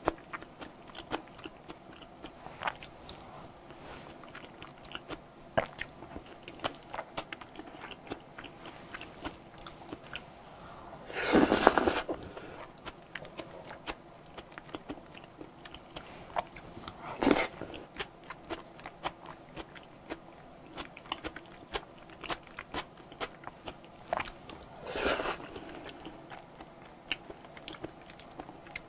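Close-miked chewing of soft, creamy cream-sauce pasta with mushrooms: wet mouth clicks and smacks, steady through. Three louder, longer noises stand out, the longest a little before the middle and two shorter ones later.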